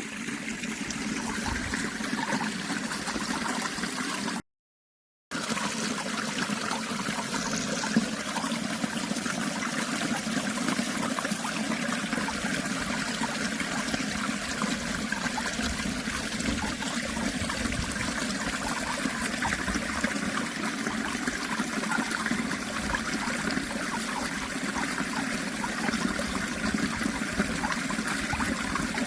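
Steady running water of a flowing stream. The sound cuts out completely for under a second about four and a half seconds in.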